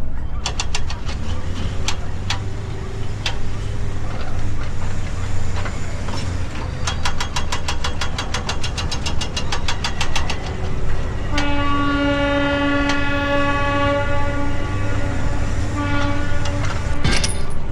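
Train sound effect: a locomotive running with a steady low rumble and clickety-clack over rail joints, the clicks coming fast and even about seven seconds in. About eleven seconds in comes one long horn blast lasting some five seconds.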